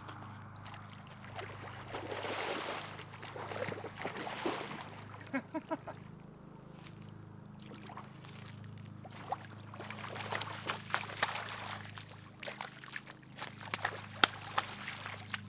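A hooked common carp thrashing and splashing in shallow water at the bank: a rush of splashing early on, then near the end a string of sharp slaps as it flops at the water's edge.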